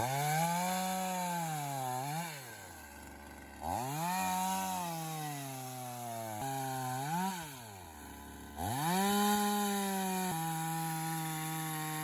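Chainsaw engine revving up and dropping back toward idle about three times, with short blips between, then holding a steady high rev near the end. The chain on this saw is very blunt.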